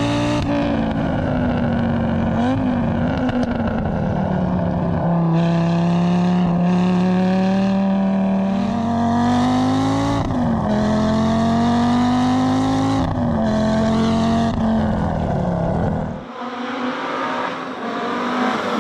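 Audi Sport quattro rally car's turbocharged five-cylinder engine pulling hard, its pitch climbing through each gear and dropping sharply at several gear changes. About three seconds before the end the sound becomes thinner and quieter, then rises again as the car comes on toward the microphone.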